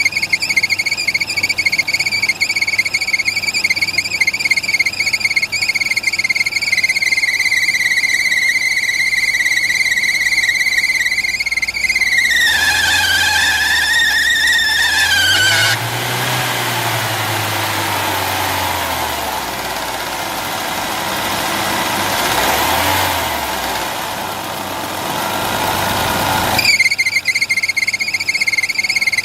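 Citroën BX's hydraulic pump giving a steady, high-pitched squeal with the engine running. The squeal drops in pitch partway through, then gives way to a broader rushing noise with a low hum rising and falling twice, and comes back near the end.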